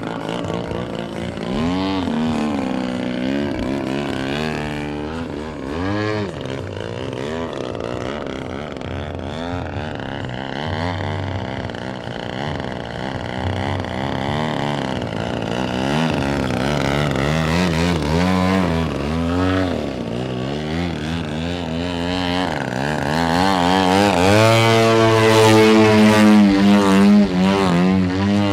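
Giant-scale radio-control aerobatic airplane's engine and propeller, the engine note sweeping up and down again and again as the throttle is worked through 3D manoeuvres. It grows louder near the end.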